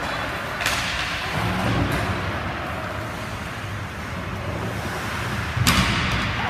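Ice hockey game in an echoing indoor rink: a steady hiss of arena noise with two sharp cracks from play on the ice, one about half a second in and a louder one near the end.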